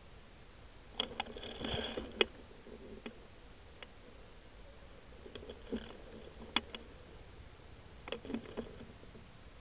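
Handling noise of an airsoft rifle carrying a scope camera as it is moved about: scattered sharp clicks and knocks, with a short crunchy rustle a second or two in.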